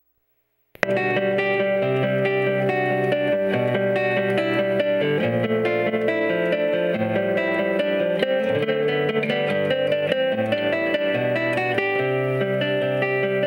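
Instrumental opening theme music led by plucked guitar, starting abruptly under a second in after silence.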